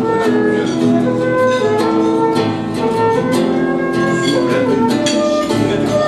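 Live duet of a transverse flute and an acoustic guitar: the flute plays a melody of held notes while the guitar is strummed underneath.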